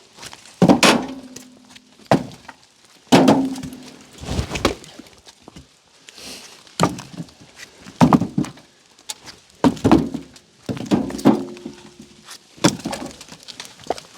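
Chunks of cherry firewood thunking and knocking hard, about a dozen times at an uneven pace. The first two knocks leave a short ringing tone.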